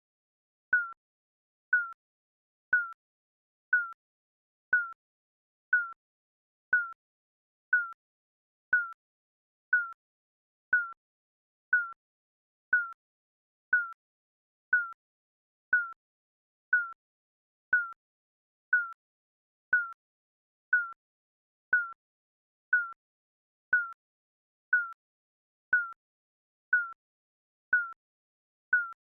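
Digital countdown timer beeping once a second: short, even, slightly falling electronic beeps with silence between.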